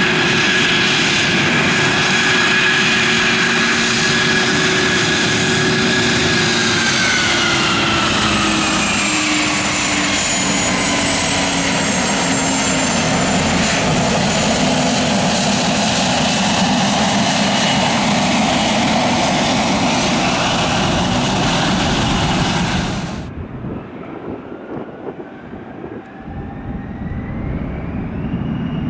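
Dassault Falcon 7X business jet taxiing close by, its three Pratt & Whitney Canada PW307 turbofans whining at idle; the whine slides down in pitch as the jet goes past. About three-quarters of the way through, the sound cuts to a quieter, more distant whine from the same jet that rises in pitch.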